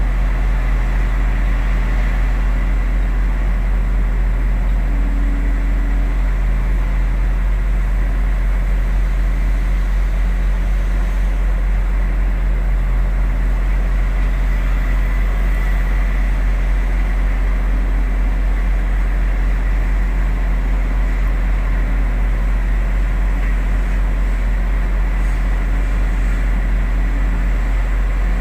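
Diesel engine of heavy earthmoving equipment (excavator or dump truck) running steadily with a deep drone, its pitch shifting slightly from time to time.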